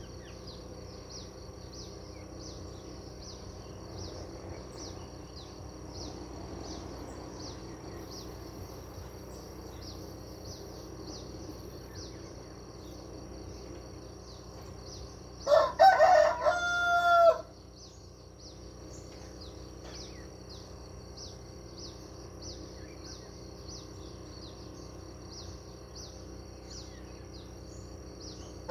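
A rooster crows once, about two seconds long, a little past halfway. Behind it a high, thin chirp repeats steadily about once a second, over a faint steady hum.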